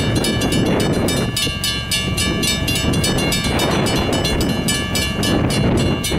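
Railroad crossing bell ringing in rapid, even strokes as the crossing's lights flash and its gates are down for a train, over a steady low rumble.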